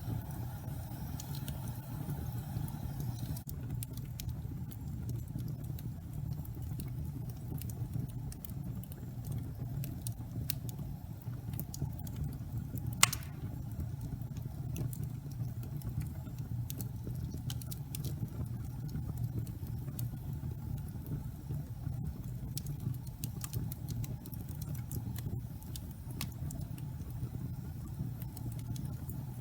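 Wood fire burning in a fireplace: a steady low rumble of flames with scattered small crackles, and one sharp loud pop about halfway through.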